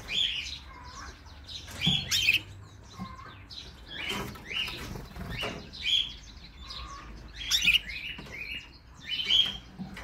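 Domestic canaries giving short, high chirping calls every second or so, with brief wing flutters as they fly up onto the cage wire.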